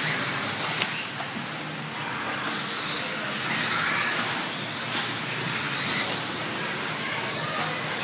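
1/10-scale electric RC buggies racing: the high whine of their brushless motors and their tyre noise swelling and fading as cars pass.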